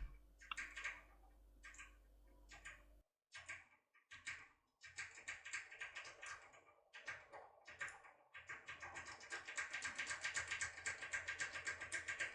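Faint small metallic clicks of a Topolino lock decoder being worked inside a MAUER Elite 2 cylinder under light tension, scattered at first. From about eight seconds in they become a fast, steady run of ticks.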